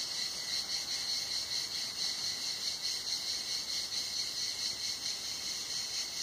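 Cicadas singing in chorus: a steady high-pitched buzz with a fast, even pulsing.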